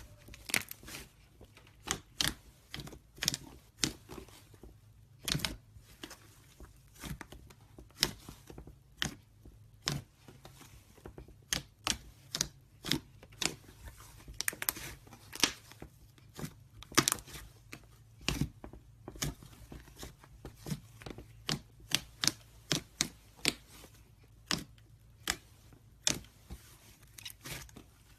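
Slime being kneaded and pressed by hand, making irregular sharp pops and clicks, about one or two a second.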